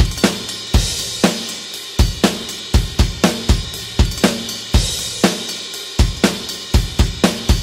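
Rock drum kit playing a steady beat at 120 bpm: bass drum and snare with hi-hat and crash cymbals, with no other instruments.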